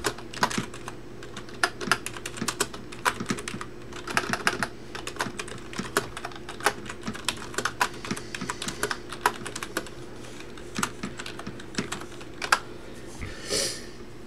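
Typing on a computer keyboard: quick, irregular key clicks in runs, with a short pause about two-thirds of the way through. A brief rustle near the end, over a faint steady hum.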